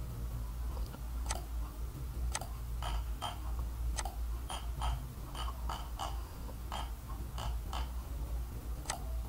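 Computer mouse clicking: about fifteen short, sharp clicks at an uneven pace, some in quick pairs, over a low steady hum.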